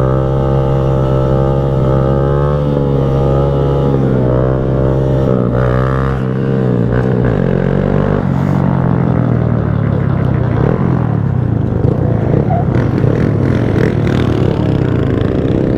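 Small motorcycle engine running steadily, then changing pitch up and down with the throttle from about seven or eight seconds in.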